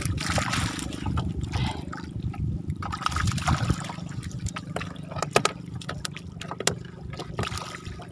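Water splashing, dripping and trickling in a fish-cage net as fish are picked out of it by hand, over a low, unsteady rumble. Two sharp knocks come in the second half.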